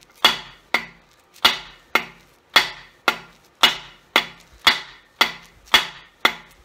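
A small dead-blow mallet striking a 30 mm socket set on a core (freeze) plug in a small-block Chevy engine block, about twelve even taps at roughly two a second, each with a short ring. The plug is being started into its bore in the block.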